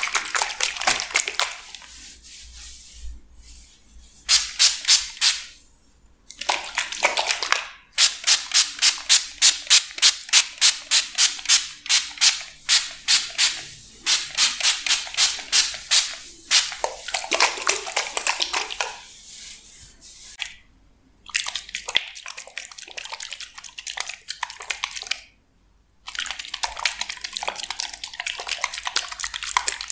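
Small plastic pump spray bottle misting liquid onto hair in runs of quick, sharp hissing squirts, about two a second. Between the runs there is quieter rustling of fingers rubbing through the damp hair.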